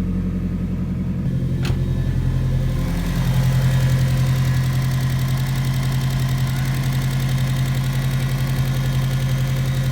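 2004 Subaru STI's turbocharged flat-four idling just after a restart following new OCVs, the idle still uncertain. About three seconds in, the idle note drops lower and gets louder, then holds steady.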